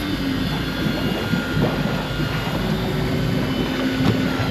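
Steady motor drone with a constant hum on a fishing boat at sea.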